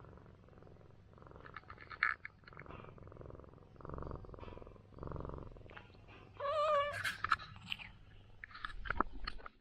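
Ginger domestic cat purring while being massaged, the purr swelling and fading about once a second. A short wavering high cry cuts in about six and a half seconds in.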